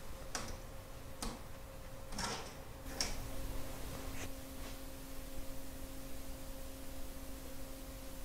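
Footsteps on a stage floor: about six short knocks, unevenly spaced, that stop about four and a half seconds in, over a steady electrical hum.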